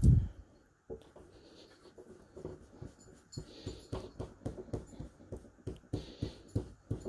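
Round foam ink-blending tool scrubbed over a plastic stencil on paper in quick short strokes: a run of soft scuffs and dabs, several a second. A single heavy thump right at the start is the loudest sound.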